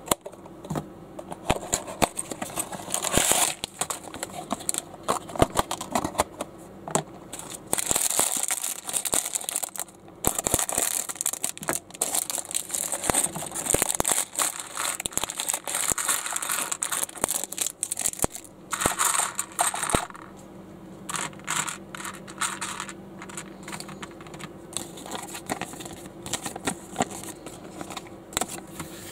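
Small plastic building-brick pieces being handled: scattered clicks and rattles, mixed with irregular bursts of crinkling plastic packaging.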